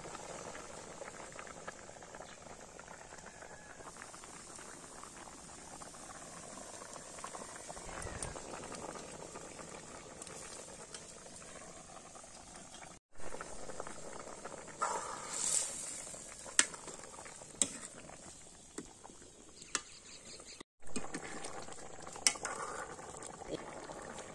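Fish curry bubbling at a simmer in a large metal kadai over a wood fire. In the second half, a metal ladle stirs it, with sharp clinks against the pan.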